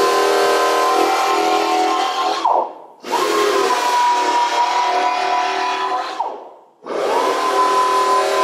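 3M air-powered file belt sander grinding a taper into a plastic bumper cover for an adhesive repair: a steady whine with air hiss. It winds down and cuts out about two and a half seconds in, spins back up, stops again about six seconds in, and starts once more near the end.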